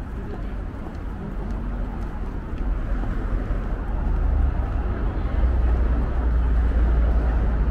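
Street traffic: a vehicle's deep rumble builds from about halfway through and stays loud, over steady city street noise.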